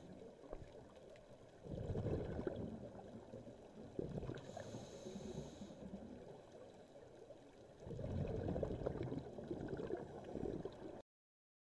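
Scuba diver breathing underwater through a regulator: long gurgling bursts of exhaled bubbles, each a few seconds long, with a hissing inhale between them about four and a half seconds in. The sound cuts off abruptly near the end.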